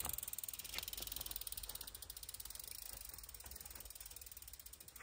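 Bicycle freewheel hub ticking rapidly and evenly as the gravel bike coasts, slowly getting fainter.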